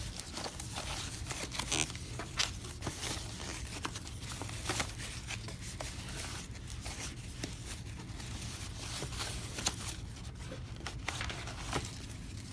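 Plastic packaging crinkling and rustling as a new camera is unwrapped and handled, with irregular small clicks and taps, over a steady low hum.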